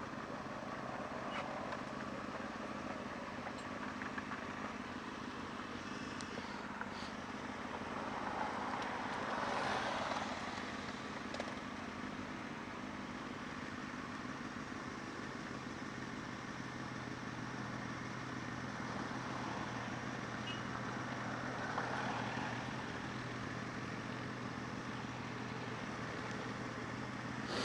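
Honda CB600 Hornet's inline-four engine running at a steady cruise, with wind and road noise over it. There is a louder rush of noise about eight to ten seconds in and again near the end.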